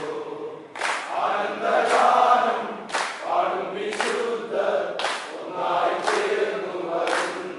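A crew of snake-boat rowers chanting together in unison, with a sharp strike about once a second keeping the stroke rhythm.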